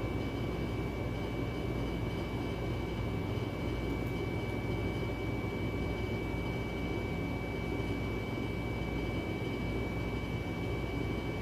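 Steady mechanical hum and hiss with a constant thin high whine above it, unchanging throughout.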